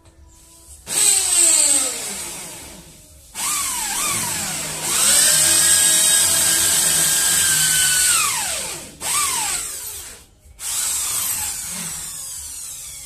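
Corded electric drill boring into a wall to make holes for wall plugs, in four bursts. Each time the motor spins up to a high whine and winds down when it stops, with a long steady run in the middle.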